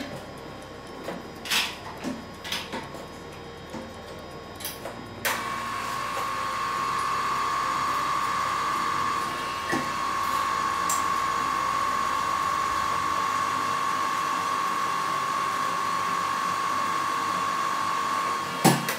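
A few clicks and knocks as the flywheel is set in position. About five seconds in a drill press starts and runs steadily with a high whine while it drills into the flywheel on the Mercedes-Benz V8 crankshaft, removing metal at the unbalanced spot to balance the assembly. A sharp knock comes near the end as it stops.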